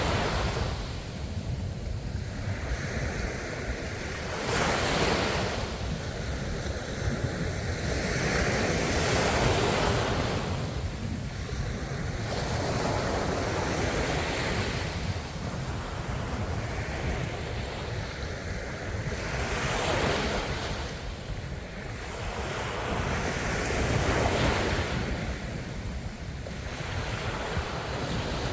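Ocean waves breaking and washing up the shore, surging and falling back every four to five seconds over a constant low rumble of surf.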